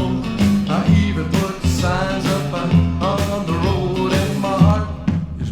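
Rock band playing a song: a sung vocal line over bass guitar, drum kit and electric guitar.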